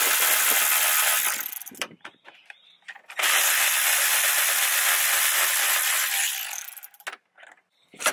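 Cordless electric ratchet running on a 10 mm bolt of the radiator support, in two long runs with a pause between: the motor and gearhead whirring while the bolt is spun out. A brief sharp click near the end.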